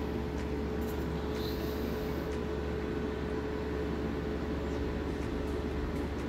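Steady background hum with hiss and a constant mid-pitched tone, unchanging throughout: the room tone of a kitchen with something running.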